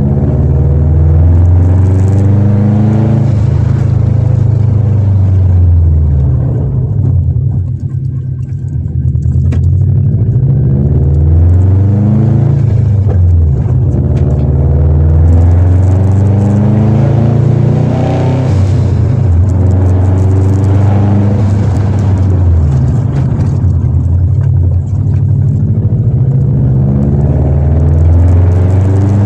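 Straight-piped Subaru Impreza WRX's turbocharged flat-four heard from inside the cabin, a deep rumble with the revs rising and falling again and again as the car is driven. It goes quieter for a moment about eight seconds in.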